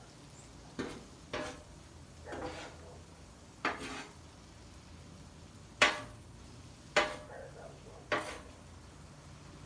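Metal spatula scraping and clattering on a steel flat-top griddle as it tosses a pile of noodles and shrimp. About seven short, sharp strikes come at uneven intervals, the loudest about six seconds in.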